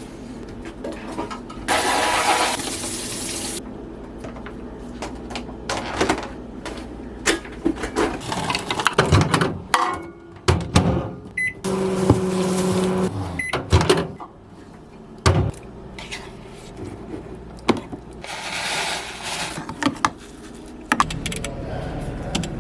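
A run of knocks, clicks and handling noises, with a hiss about two seconds in and again near the end, and a short steady hum about twelve seconds in.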